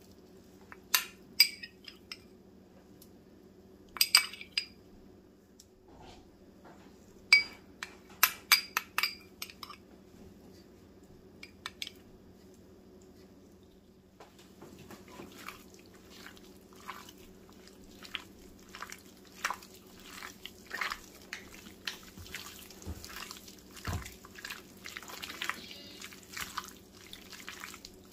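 A metal spoon clinks and scrapes against a small glass bowl as ginger and garlic paste is scooped out, in clusters of sharp clinks over the first twelve seconds. From about fourteen seconds on, raw chicken pieces squelch wetly as they are kneaded by a gloved hand with yogurt and spices. A faint steady hum runs underneath.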